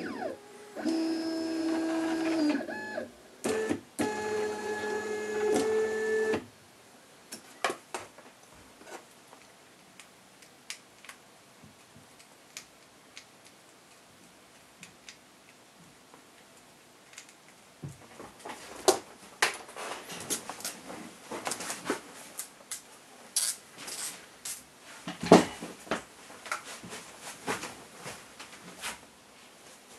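Stepper motor on a 3D printer, driven from a hand-held stepper tester, whining at a few steady pitches that change in steps as the speed is set, stopping about six seconds in. After that, scattered clicks and knocks of handling, thicker in the last twelve seconds.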